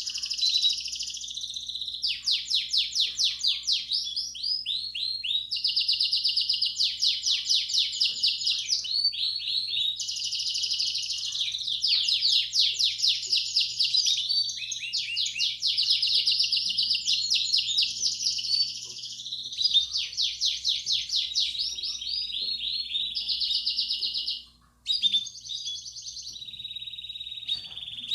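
Belgian canary singing a long, continuous song of rapid trills and rolls in the 'campainha' (bell) style, broken by a short pause about 25 seconds in. A faint steady low hum runs under it.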